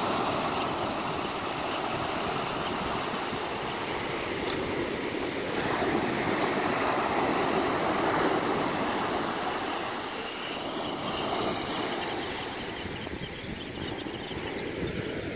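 Ocean surf breaking and washing up a sandy beach, the hiss of the water swelling and easing as each wave comes in, with some wind noise on the microphone.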